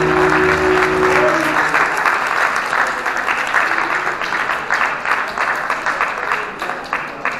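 A live rock band's final held chord rings out and stops about a second and a half in, and the audience applauds, the clapping gradually fading.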